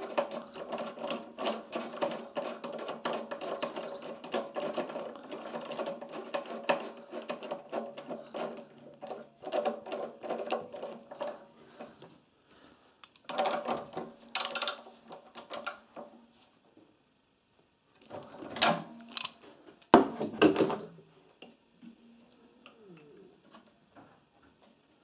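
Spark plug being wound into a small Honda GX engine's cylinder head with a plug spanner: a long run of rapid metallic clicking and rubbing, then a few separate louder clanks of the tool about halfway through.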